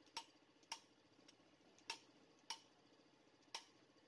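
Five faint, sharp clicks at uneven intervals, each with a brief light ring: small engine parts and hand tools being handled and set down during assembly.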